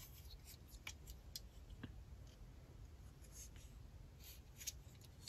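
Faint, scattered clicks and rubbing of plastic LEGO pieces handled in the fingers as the small model is turned over, over a low room hum.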